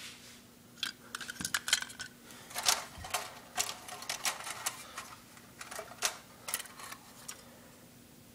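Old toy train cars being handled and turned over, giving irregular light clicks and clinks of small hard parts knocking together, thinning out near the end.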